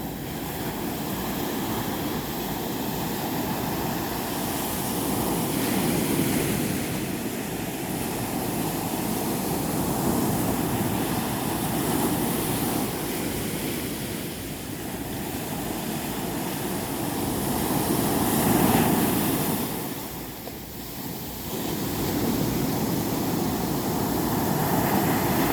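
Sea surf washing onto a beach, the rush swelling and falling every few seconds, with a brief lull about twenty seconds in.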